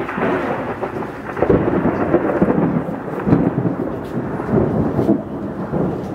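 Thunder from an approaching storm: a long continuous rumble that swells several times.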